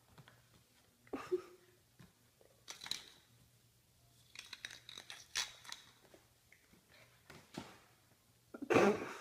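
A puppy scrambling and pouncing on a tile floor: scattered short scratchy scuffs and clicks, with a louder burst near the end.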